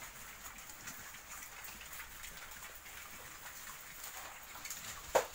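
Young wild boar chewing and rooting through a pile of fresh leafy green stems: a steady patter of crunching and leaf rustling, with one sharp, short sound near the end.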